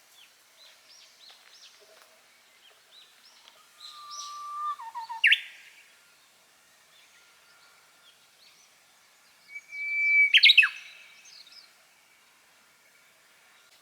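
A songbird singing twice, each song a long held whistle that ends in a quick sweeping flourish, about four and ten seconds in, with faint short chirps from other birds between.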